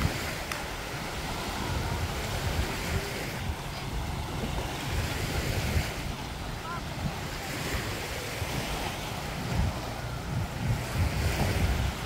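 Surf washing up on a sandy beach, with wind buffeting the microphone in uneven low gusts.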